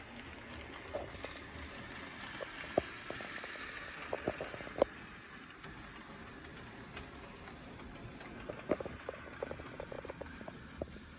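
HO scale Rivarossi IHC 2-8-2 Mikado model steam locomotive running along the track: a steady whir of its motor and rolling wheels, with scattered sharp clicks.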